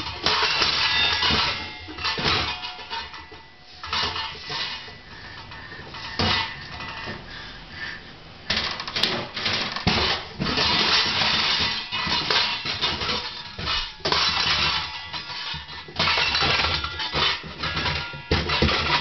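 Metal cookware clattering and clanging as a baby pulls stainless steel bowls, frying pans and lids out of a low kitchen cabinet and knocks them together, the metal ringing after the strikes. It comes in bursts with short lulls.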